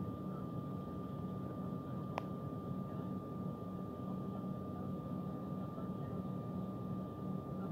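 Steady cabin noise of an airliner taxiing, a low hum of engines and air systems with a thin steady whine over it. One faint click about two seconds in.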